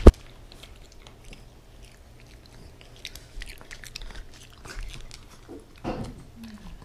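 A sharp click right at the start, then a shaggy dog sniffing and mouthing close to the microphone, with small clicks and snuffles and a short sound falling in pitch near the end.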